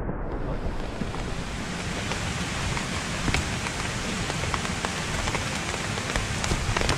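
Rain falling steadily: a constant hiss with many separate drops ticking sharply on a nearby surface.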